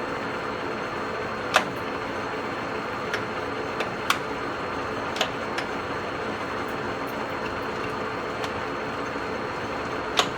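Acra engine lathe running with a steady mechanical hum, broken by several sharp clicks or knocks, the loudest about a second and a half in and another near the end.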